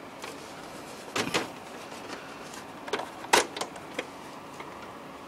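Plastic parts of an IBM ProPrinter III dot-matrix printer knocking and clicking as they are lifted and pulled off by hand: a pair of knocks about a second in, and a sharper cluster around three and a half seconds.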